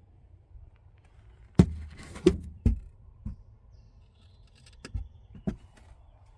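Several sharp knocks and clatters, about six in a few seconds, from a part being handled and fitted back into place.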